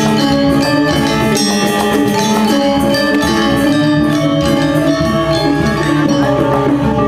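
Balinese gamelan playing: metallophones ringing note after note over percussion.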